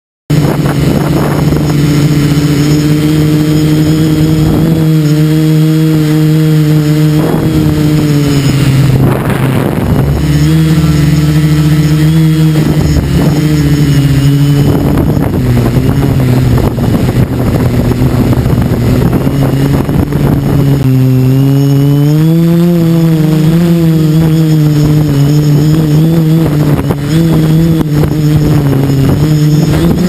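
Quadcopter's electric motors and propellers heard from the onboard camera, a loud steady drone that starts suddenly just after the start and wavers in pitch as the motors change speed fighting strong wind, rising for a few seconds about two-thirds of the way through. Gusts buffet the microphone.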